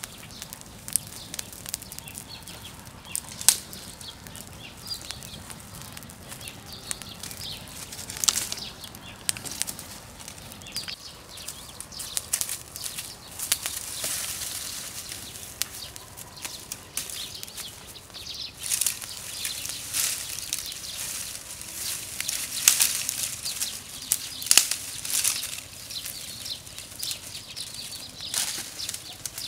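Dry grass and straw fire crackling and popping in irregular sharp snaps over a soft hiss of burning. Dry branches rustle and crack as they are piled onto the smoking embers.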